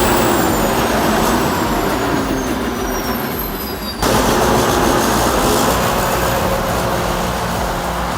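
Bulldozer's diesel engine running hard, loud and steady, with the sound cutting sharply to a new stretch about four seconds in.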